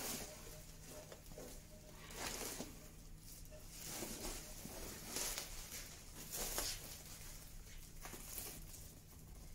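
Wood shavings, mostly oak, pouring out of a sack into a plastic tub in several short rushes, with the sack rustling as it is shaken and tipped.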